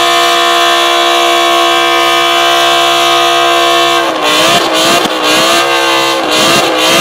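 BMW M5 E60's V10, breathing through an Agency Power exhaust, held at steady high revs during a smoky burnout, a constant wail for about four seconds. Then the revs rise and fall several times as the throttle is worked.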